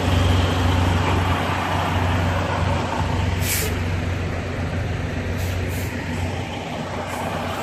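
Semi truck's diesel engine running slowly while backing, heard from inside the cab. Short hisses of air come about three and a half seconds in and a few more times near the end.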